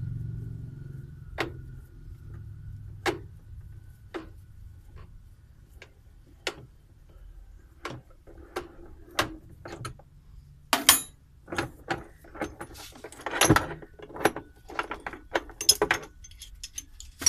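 Sharp metal clicks and clinks from a spanner turning the bolt of a puller to jack a washing machine's drum off its shaft. The single clicks come a second or so apart, then faster and louder from about halfway through.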